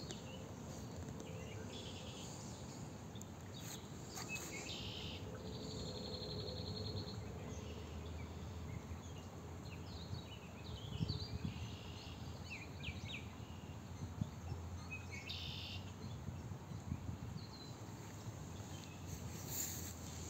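Birds chirping and trilling on and off, with one rapid trill a few seconds in, over a steady low background hum of outdoor ambience.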